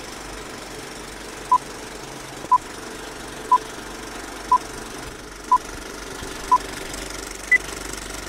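Seven short electronic beeps one second apart, six at the same pitch and the seventh higher, like a time-signal or countdown. They sound over a steady background hum.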